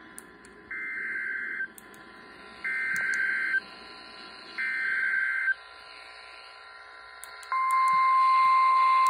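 Emergency Alert System data tones: three warbling bursts of about a second each, a second apart, that carry the digital header of a new alert. Near the end a loud steady alert tone starts and holds, announcing the flash flood warning that follows.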